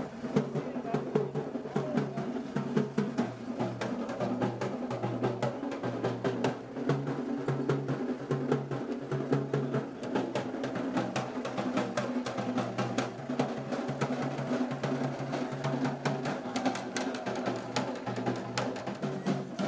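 Drums playing a fast, dense rhythm of sharp strikes over a low held tone.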